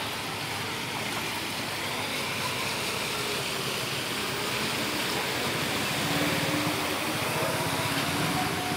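Steady wash of moving floodwater with a motor vehicle engine running, a little louder about six seconds in.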